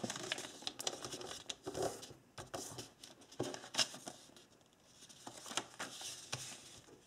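A sheet of printer paper rustling and crackling as its bottom strip is folded up and the crease pressed flat, in short irregular rustles.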